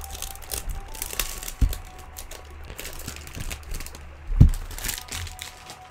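Thin clear plastic bag crinkling and rustling in irregular crackles as it is pulled off a boxed tarot deck, with a low thump a little over four seconds in.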